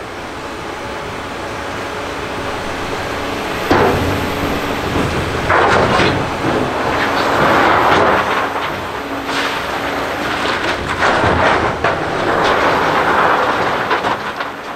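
Liebherr LH60 material handler running as it swings and lowers its clamshell grab, with a steady hum, sharp knocks about four, five and a half, six, nine and eleven seconds in, and stretches of rattling of stone and steel.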